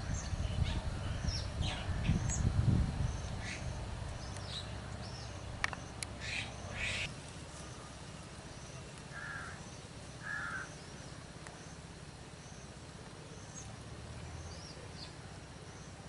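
Wild birds calling outdoors: many short chirps and whistles in the first half, with a couple of harsh, raspy calls about six to seven seconds in and two short lower calls a few seconds later. A low rumble underlies the first few seconds.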